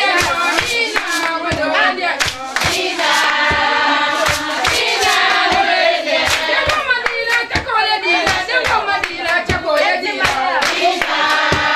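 A group of women singing together over steady rhythmic hand clapping.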